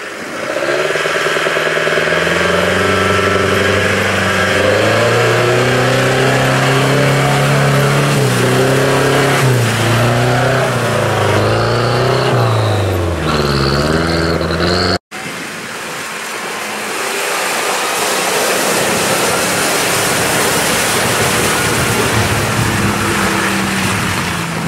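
UAZ-469 off-roader's engine revving hard as it ploughs through deep mud, its pitch rising and falling with the throttle. After an abrupt cut about 15 seconds in, a Land Rover Discovery's engine runs under load with its tyres spinning and churning mud, a rougher, noisier sound.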